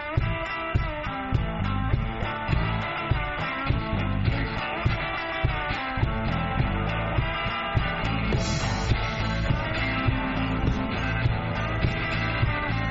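Blues-rock band playing live without vocals: an electric guitar lead line over a steady drum beat and bass.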